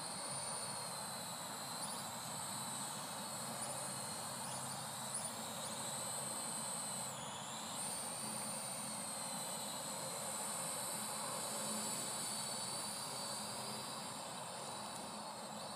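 Parrot AR.Drone 2.0 quadcopter's four rotors whining in flight, the high pitch shifting as it manoeuvres, with a brief dip about seven seconds in.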